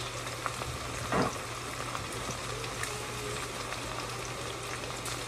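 Chicken frying in a pan on the stove, a steady sizzling hiss over a low steady hum, with one short louder sound about a second in.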